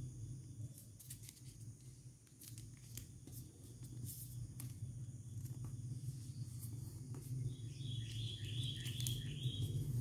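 A sheet of origami paper being folded and creased by hand gives faint crackles and taps over a steady low hum. A brief high chirping comes near the end.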